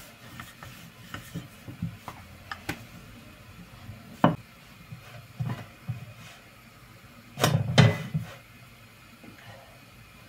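Scattered knocks and taps of kitchen utensils, with a louder clatter of a pan at the gas stove about three quarters of the way through.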